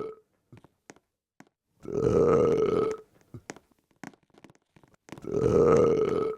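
A person burping: two long, low belches, each lasting about a second, about three seconds apart, with the end of an earlier burp at the very start. Faint clicks come between them.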